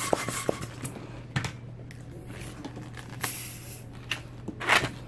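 Handling noises of a black 260 latex twisting balloon just inflated with a hand pump, as it is taken off the pump and its neck gripped for tying: scattered clicks, rubbing and squeaks of latex, with a short hiss a little past halfway, over a faint low hum.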